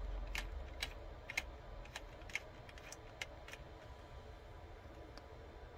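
Faint, irregular light clicks and taps of fingers pressing an adhesive magnetic ring onto the lens ring of a Polaroid SX-70 and handling the camera's metal front. Most of the taps come in the first three seconds or so, then they thin out.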